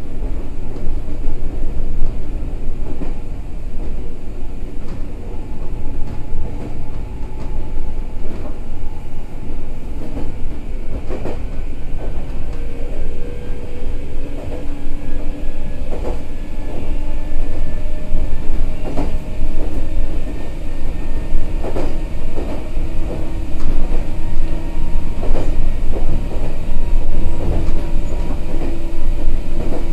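Onboard running sound of a Meitetsu 6000 series electric train: a steady rumble of wheels on rail with sharp rail-joint clacks every few seconds. From about halfway on, a motor and gear whine rises in pitch and the noise grows louder as the train picks up speed.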